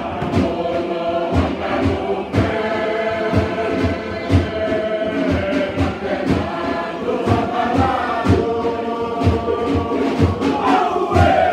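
A large mixed choir of Tokelauan men and women singing a dance song together, with a sharp struck beat keeping time about twice a second. Near the end the voices slide down in pitch.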